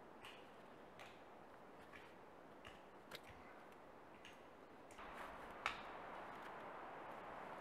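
Faint, scattered small clicks and ticks of hands working cord around a notched wooden stick, tying the frame of a home-made snowshoe, over a low hiss. One sharper click comes about three-quarters of the way through.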